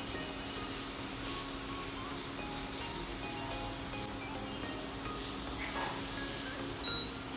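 Soft background music over a silicone spatula stirring and scraping a thick, sticky wood-apple and jaggery mixture in a nonstick pan. A steady low hum runs underneath.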